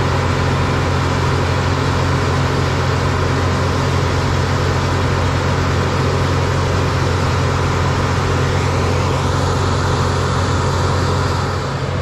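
Steady drone of diesel farm machinery: an International Harvester 1460 combine running while unloading corn, with a tractor close by.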